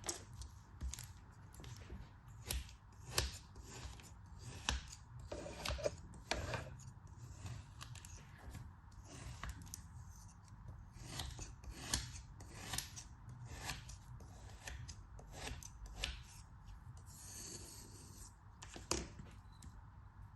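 Crisp, irregular crunching cuts of a blade through soft ASMR craft material such as kinetic sand or soap cubes, roughly one to three a second, with a longer scraping stroke near the end.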